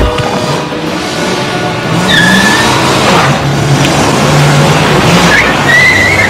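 Car engine revving hard with tyres squealing as it pulls away fast: a short squeal about two seconds in and a longer, rising squeal near the end.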